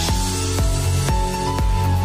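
Background music: held tones over a steady beat of about two strokes a second.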